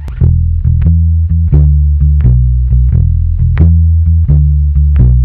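Magna PB electric bass, a P-style bass with a basswood body and maple neck, played through a bass combo amplifier: a steady line of plucked low notes, about three a second.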